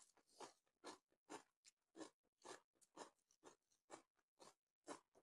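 Faint close-miked chewing of a mouthful of rice and pork curry: soft, wet mouth smacks in a steady rhythm of about two a second.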